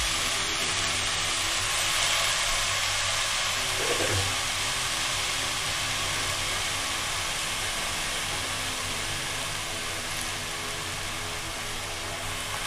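Chopped green onions, added wet after washing, sizzling steadily in hot oil in a steel kadhai, the sizzle slowly easing. There is a brief small knock about four seconds in.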